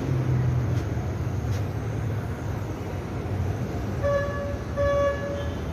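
Steady street traffic noise with a vehicle horn sounding twice, two short beeps about four seconds in.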